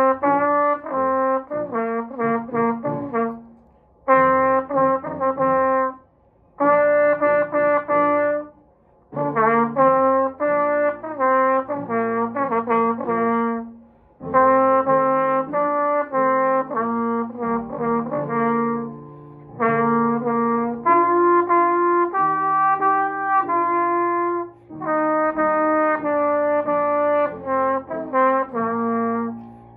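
Solo trumpet played unaccompanied: a melody of short detached notes mixed with longer held notes, in phrases broken by brief pauses.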